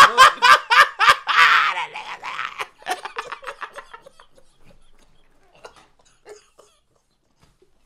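Two men laughing hard in quick, loud bursts that die away after about three seconds into faint, scattered chuckles.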